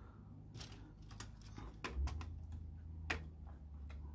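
Light, sharp plastic clicks and taps, several at irregular intervals, as a hand handles and turns a Lego forklift on a Lego plate.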